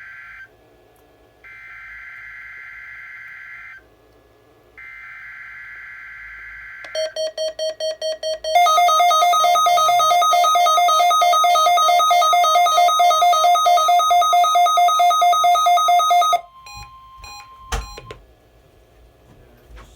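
NOAA weather radios going through the weekly test alert. First come three warbling digital data bursts of the SAME header. Then the radios' alarms go off, rapid loud electronic beeping over the steady warning alarm tone. The beeping stops about two-thirds of the way through, and the steady tone cuts off shortly after with a click.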